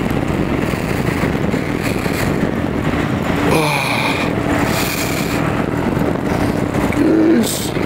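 Wind buffeting the microphone of a phone carried on a moving bicycle: a steady rumble, with a few brief higher-pitched sounds on top near the middle and near the end.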